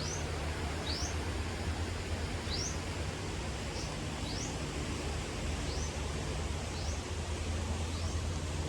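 Steady wind and water rush while paraw sailing, with wind buffeting the microphone as a low rumble. A short high rising chirp repeats about once a second over it.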